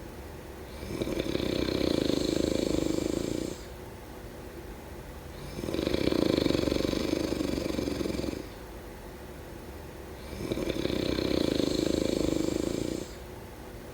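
Steady rhythmic snoring: three long, loud snores about every five seconds, with quieter breaths between them.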